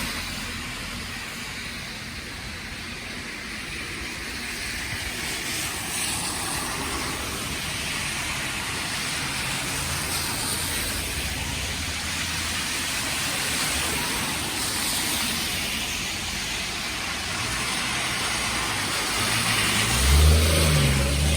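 Road traffic on a snowy street: cars passing one after another, their tyres hissing, swelling and fading every few seconds. Near the end a louder vehicle engine passes close by.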